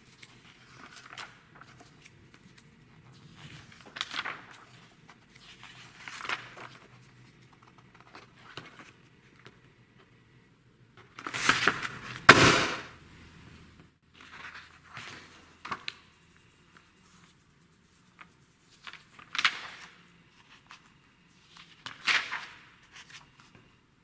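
Glossy magazine pages being turned by hand, a short paper swish every two to three seconds. About halfway there is a much louder double flap and slap of paper as one magazine is taken away and the next is put down.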